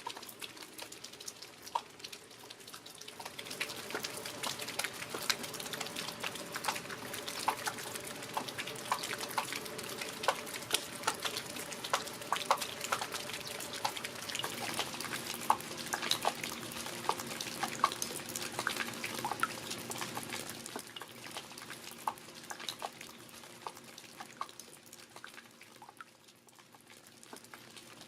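Rain falling, with many separate drops pattering and dripping over a steady hiss. It grows heavier a few seconds in and eases off again after about 20 seconds.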